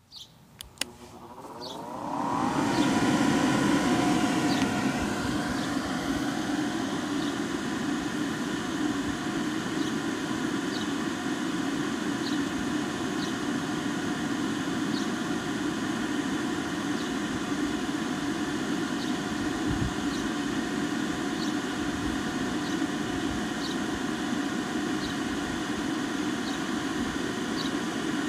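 Electric bouncy-castle blower switched on with a click: its motor winds up with a rising whine over about three seconds, then runs steadily, blowing air into the inflatable bouncer.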